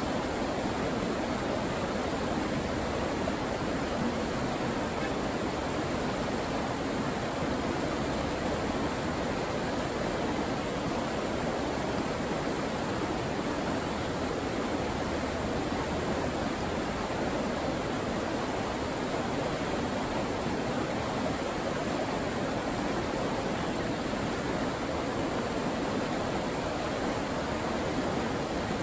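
River water rushing steadily through a shallow, rocky run of white-water riffles, an even rushing noise without change.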